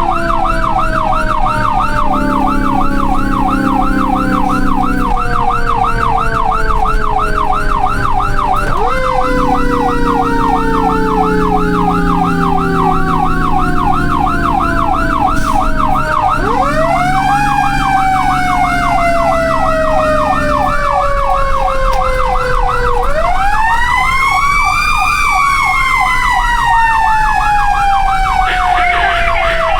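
Several emergency sirens sounding together, typical of fire trucks responding to an alarm. A fast yelp warbles about four times a second over slower wailing sirens that slowly fall in pitch, then wind up again twice in the second half.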